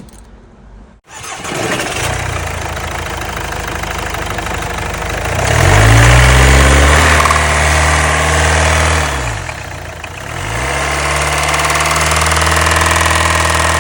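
Mercedes GLA engine starting about a second in and running with a knock ('ça tape'). The engine had been run with no oil in it; the mechanic says the knock is not an injector. Revs rise about five seconds in, drop back around nine to ten seconds, then rise again and hold.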